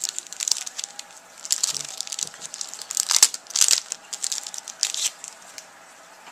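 Plastic wrapper of a trading-card pack being crinkled and torn open by hand in a quick run of sharp, irregular rustles, loudest about halfway through, stopping shortly before the end.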